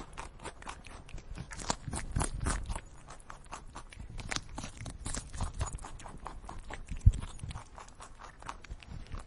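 Red squirrel feeding at a wooden feeder box, crunching and gnawing nuts and rummaging inside the box: a quick, irregular run of small clicks and cracks, with one louder knock about seven seconds in.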